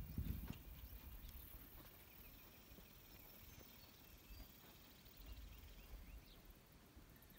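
Near silence: faint outdoor ambience with a low rumble at the start and a faint run of bird-like chirps in the middle.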